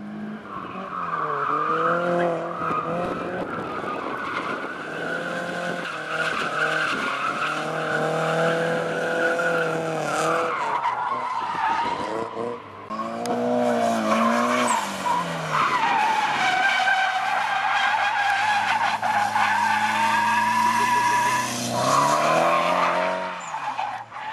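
Cars drifting: tires squealing continuously as they slide, over engines whose revs repeatedly rise and fall under throttle.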